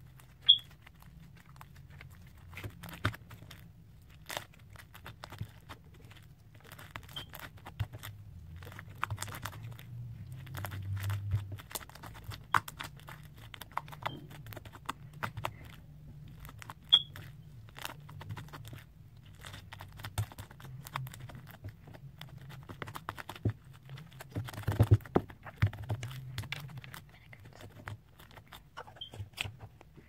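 Clear slime being stretched, squeezed and pressed by hand, making irregular soft sticky clicks and pops, with a denser run of them about 25 seconds in.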